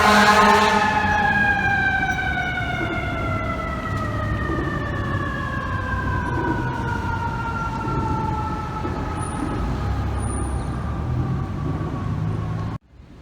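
FDNY fire truck's mechanical siren winding down, its pitch falling slowly and steadily over about twelve seconds, with the truck's engine rumbling underneath. A loud horn blast ends about half a second in, and the sound cuts off abruptly near the end.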